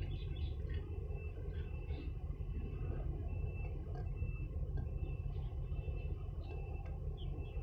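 Steady low outdoor rumble at the waterfront, with faint short high-pitched tones scattered through it.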